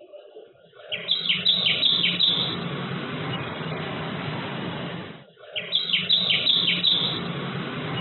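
Tailorbird calling: two bursts of loud, sharp high notes in quick succession, each about five notes long, about a second in and again after five seconds, over a steady background hiss.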